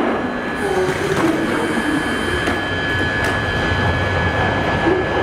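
London Underground 1995 Stock train standing at the platform with its doors open, giving a steady hum with a thin, high whine held throughout.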